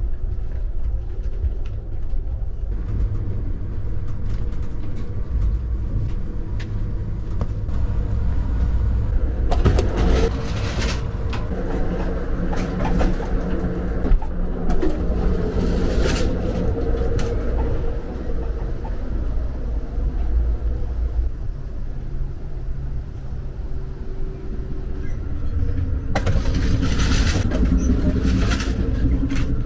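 Amtrak Empire Builder passenger train running at speed, heard from inside the cars: a steady low rumble of wheels on track. Louder rattling and clatter come in stretches about ten seconds in, again around sixteen seconds, and near the end, while the walk passes through the vestibules and end doors between cars.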